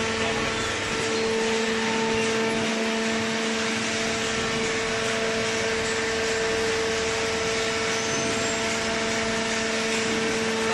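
Hydraulic cardboard baler's motor and pump running, a steady hum with a held whine over a broad mechanical noise.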